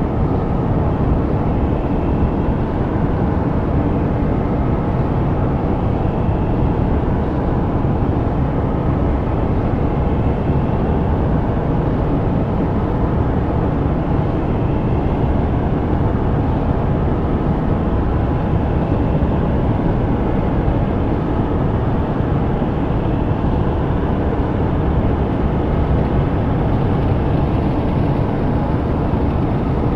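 Electroacoustic composition: a thick, steady low rumble without a clear pitch, much like massed engine or traffic noise.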